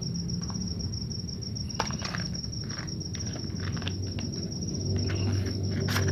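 Steel scissors snipping through the sealed cardboard end of a small box, a few short sharp cuts and rustles with a louder cluster near the end. A steady high insect trill runs underneath.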